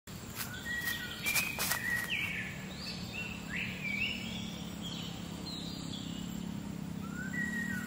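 Birds singing among trees: a run of short whistled notes that slide upward, one after another. A few crackling steps on dry leaf litter sound in the first two seconds, over a low steady hum.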